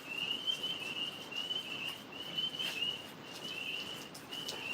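Tree frogs calling: a high, rapid trill repeated in short bursts, a little under two a second.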